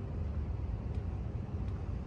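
Steady low rumble of outdoor city ambience, with a couple of faint clicks.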